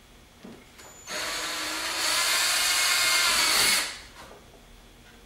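Power drill with an eighth-inch bit drilling a pilot hole through the Corvette's rear deck for a spoiler mount. The motor whines steadily for about three seconds. It gets louder partway through, then stops.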